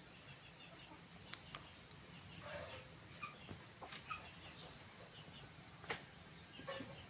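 Chickens clucking faintly, with four sharp clicks or taps spread through, the loudest near the end.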